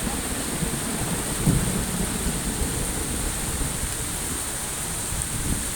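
Heavy rain pouring down steadily, a dense hiss over a deep rumbling underneath, with a brief louder swell about a second and a half in.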